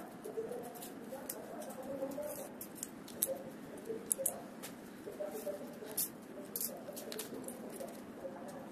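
Irregular small clicks and taps from wooden craft sticks and paper pieces being handled on a hard tabletop, with a faint murmur underneath.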